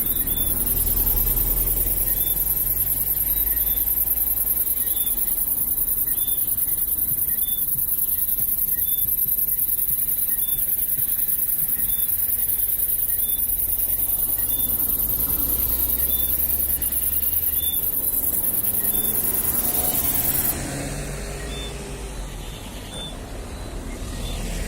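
Tropical night chorus: a dense, high-pitched insect shrill that cuts off suddenly about twenty seconds in, and short whistled chirps from small frogs repeating about once a second throughout, over a low rumble.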